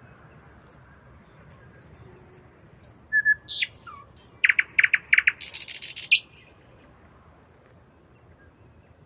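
Nightingale singing one phrase at night: scattered clicks and whistles, then four loud repeated notes and a harsh rasping burst that ends the phrase about six seconds in. A faint steady background hiss lies under it.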